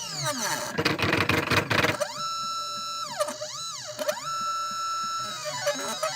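CNC 1310 desktop engraver's stepper motors singing, their pitch rising and falling in arcs as the axes speed up and slow down. For the first two seconds a harsh grinding rasp runs along with them, the fault the owner is trying to fix; after that the motor tones are cleaner.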